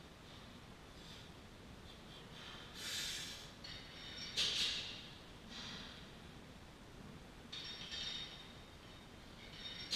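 A weightlifter's heavy breathing while standing under a 225 lb barbell between squat reps: about five short, forceful breaths spaced irregularly, the loudest about halfway through.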